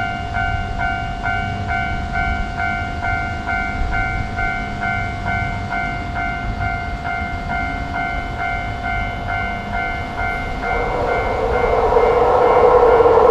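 Railroad crossing warning bell ringing, an electronic two-tone ding repeating about twice a second, over a low rumble. About ten seconds in the bell stops and a louder rushing noise swells up.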